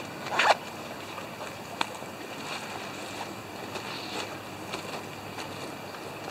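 Hands moving camp cooking gear, with one short scrape about half a second in and a sharp click near two seconds, then a few faint ticks, over a steady outdoor background hiss.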